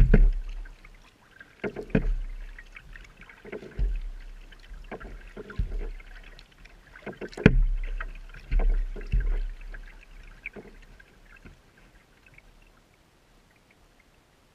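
Kayak paddling on calm water: paddle blades dipping and splashing, with low thumps, about every one to two seconds. The strokes die away near the end as the kayak glides.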